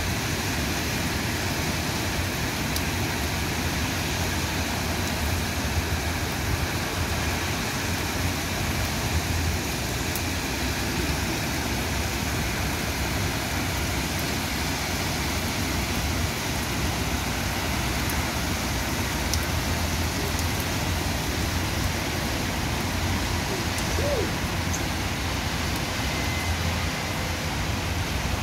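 Heavy rain pouring down steadily, an even hiss with a few faint ticks of drops striking.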